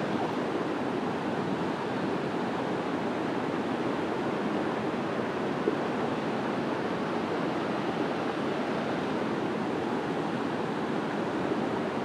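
Mountain stream rushing steadily over rocks in a riffle, an even, unbroken water noise.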